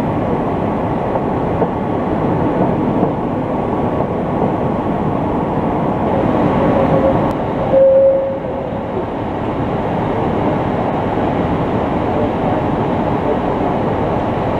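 Articulated city trams passing on street track: a steady, loud rumble of wheels on rails. A short steady tone comes in about eight seconds in.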